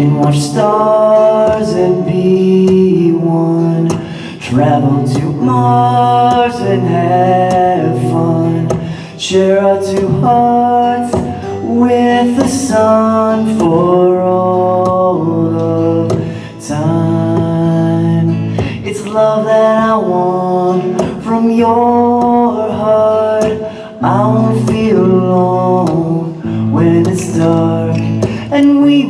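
A man singing to his own acoustic guitar, strumming chords under a sung melody.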